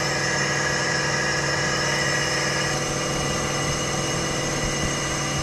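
Air compressor running with a steady hum.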